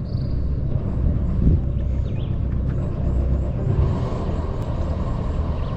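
Sailboat's engine running steadily in reverse with a low rumble, trying to back the boat off after running aground on a sandbank.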